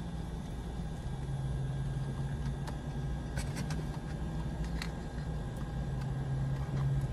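Car engine idling, heard from inside the cabin as a steady low hum, with a few faint clicks around the middle.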